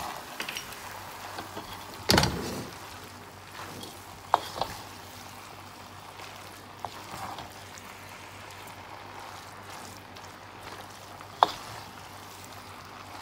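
Chicken noodles sizzling gently in a frying pan as they are mixed, with a utensil knocking against the pan a few times, the loudest knock about two seconds in.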